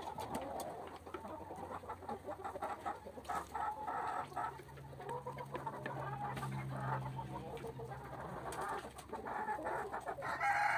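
Domestic hens clucking repeatedly, a flock of short calls one after another.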